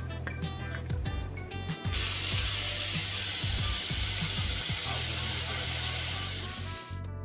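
Potatoes simmering in soy-sauce broth in an uncovered saucepan, the liquid hissing and bubbling steadily from about two seconds in until it cuts off near the end, over background music.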